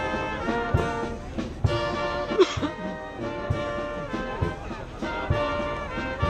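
Brass band music: held brass chords over a steady low drum beat a little faster than once a second.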